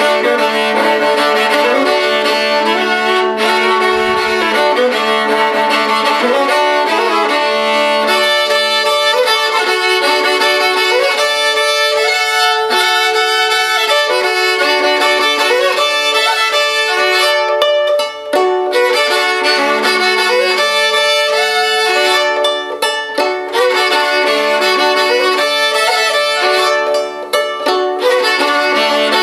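Viola d'amore bowed solo, playing a lively melody over a steady low drone note, with a few short breaks in the bowing in the second half.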